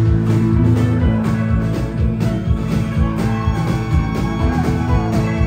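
Live country-rock band playing an instrumental passage: fiddle over strummed acoustic guitar, bass and a steady drum beat.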